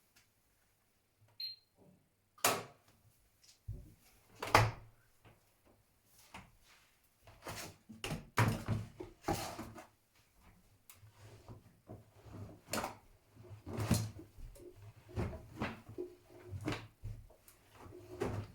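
Miele W1 front-loading washing machine giving off irregular knocks and thuds over a low hum, after a brief high tone about a second in.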